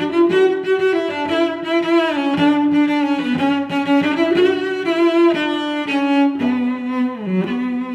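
Background music: a melody on a bowed string instrument in the cello range, moving from note to note with slides between some of them.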